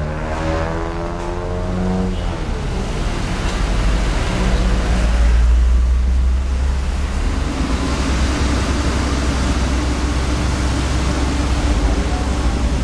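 Diesel engines running steadily with a deep rumble, mixed with road traffic. In the first two seconds an engine whine climbs in pitch, then stops.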